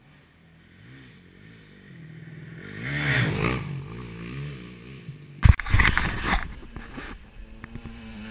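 Enduro dirt bike approaching along a dirt track, its engine note rising and falling with the throttle and growing louder. About five and a half seconds in, a sudden loud blast of noise, followed by clattering knocks over the engine sound.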